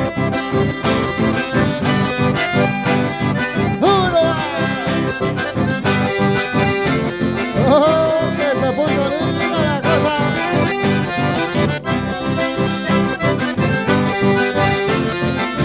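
Accordion-led dance music with a steady beat. A voice comes in briefly over it about four seconds in and again around eight seconds.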